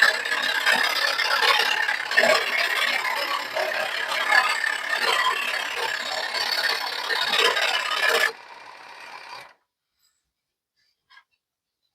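Charnwood SS16F scroll saw's motor running with its tool working a workpiece, a dense rattling, scraping noise. About eight seconds in the cutting noise stops abruptly, a quieter motor sound runs on for about a second, then it falls silent.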